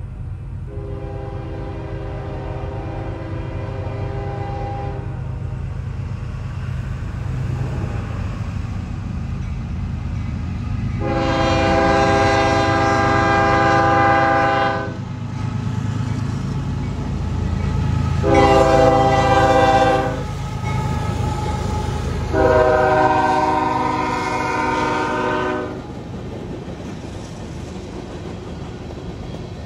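Union Pacific 5418's Nathan K5HL five-chime air horn sounding the grade-crossing signal, long, long, short, long, the first blast softer than the rest. Under it runs the steady low rumble of the locomotive and grain train rolling past.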